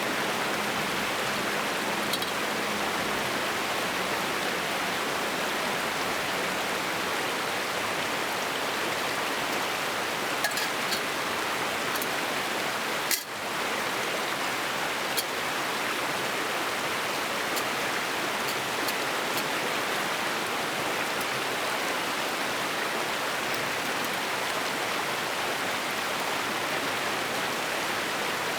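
Steady rushing water of a stream, with a few faint clicks scattered through.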